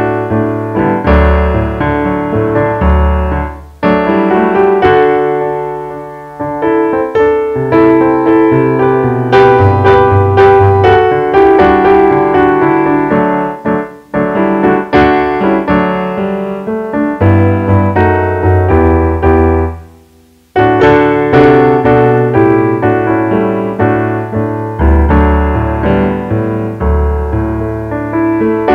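Solo piano music: chords and a melody of struck notes that ring and fade. It dies away almost completely about two-thirds of the way through, then starts again.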